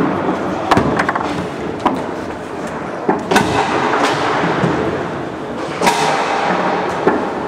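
Foosball play: the hard ball is struck by the plastic men and the rods knock, giving about ten sharp clacks at irregular intervals over a steady background noise.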